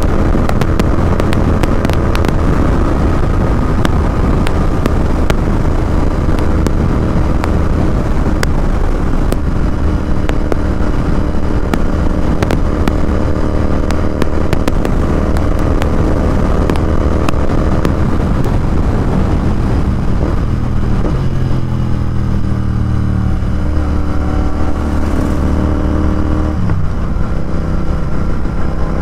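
Royal Enfield Continental GT 650's parallel-twin engine running through a Red Rooster performance exhaust at road speed, heard from the rider's seat. Late on, the engine note dips sharply, as at a gear change, and climbs again.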